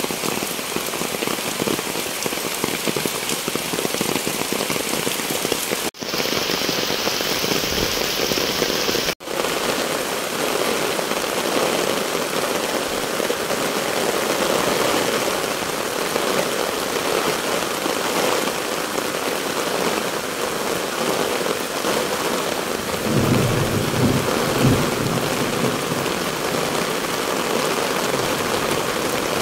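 Steady heavy rain hissing down on the ground and surfaces, briefly cutting out twice early on. A low, uneven rumble comes up for a couple of seconds near the end.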